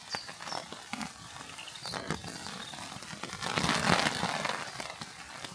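Campfire crackling with irregular pops and snaps; a louder rushing noise swells for about a second a little past halfway through.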